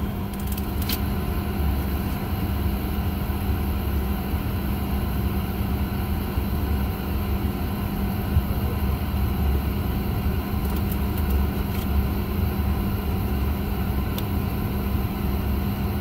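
Steady drone inside the cabin of a Boeing 737-800 parked at the gate with its engines not yet started: air-conditioning and auxiliary power hum, low and even, with a faint high whine and a few light clicks.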